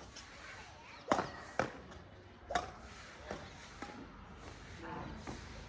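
Badminton rackets striking a shuttlecock during a rally: a few sharp hits, each a short crisp smack, the loudest in the first half.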